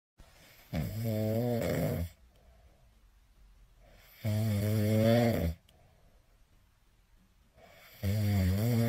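Snoring: three long, drawn-out snores about four seconds apart, each with a low, wavering pitch, the last one starting near the end.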